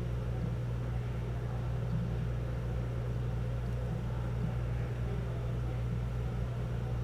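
Steady low hum with a faint hiss, unchanging, with no distinct events.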